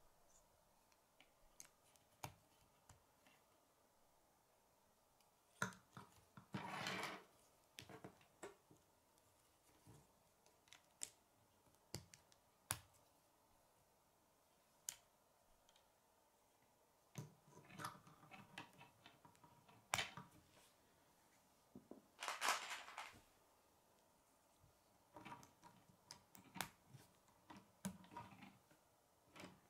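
Faint, scattered clicks and snaps of plastic K'nex rods and connectors being pushed together and handled. Two longer rattling bursts come about a quarter and three quarters of the way through.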